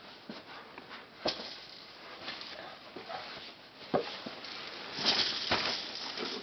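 Soft knocks and rustling as a toddler handles rubber and plastic play balls in a fabric play tent, with a sharp tap about a second in, another near four seconds, and a spell of rustling around five seconds.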